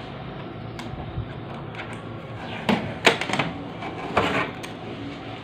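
Orange shipping tape being peeled off the plastic lid of a new HP Neverstop laser printer, heard as a few short, noisy pulls in the second half. The loudest comes just after the midpoint.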